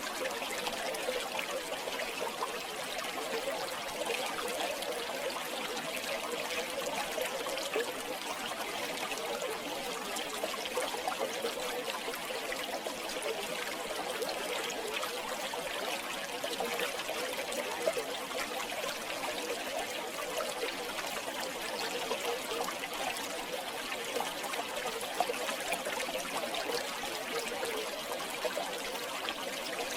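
River water flowing and trickling steadily, a constant babble of small splashes.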